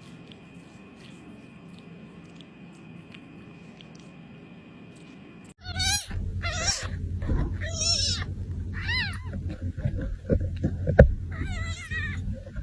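Kitten mewing, a string of about seven or eight high, rising-and-falling mews that start about halfway in over a loud low hum. Before that there is only a faint hum with a thin steady high tone.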